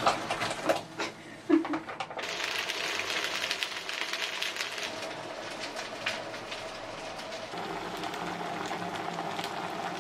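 Cooking sounds at a stove: a few clatters as gnocchi are tipped from a bag into a pot, then from about two seconds in a steady crackling hiss over a low hum.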